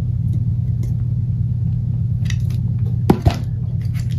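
Steady low hum under light clicks of a screwdriver and wires being handled at a contactor's terminals, with one sharp click about three seconds in.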